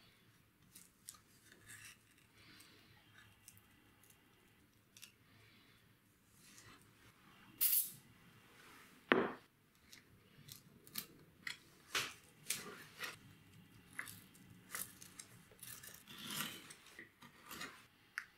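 Hands handling a cloth-backed sandpaper strip as it is wrapped around a wooden dowel: scattered rustles, scrapes and sharp crackles, with two louder snaps about 8 and 9 seconds in and a busier run of crackling later on.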